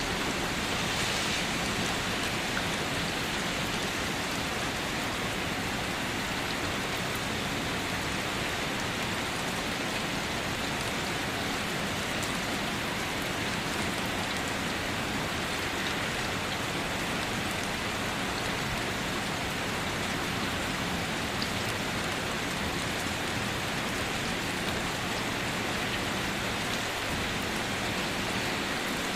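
Steady rain falling on a surface: a constant, even hiss of rain with no thunder or other events.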